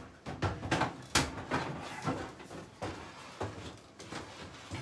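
A stainless-steel countertop microwave is lifted and slid into a cabinet opening. Its casing knocks and scrapes against the cabinet in a string of uneven bumps, the sharpest about a second in.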